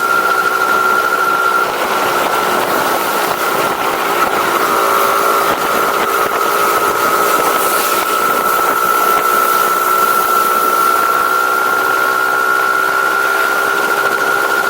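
Vehicle engine running steadily on its stock exhaust, with a steady high whine over it.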